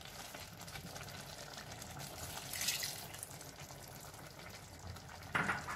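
Water being poured into a pot of half-cooked rice and beans, a low steady trickle with a brief louder splash near the middle.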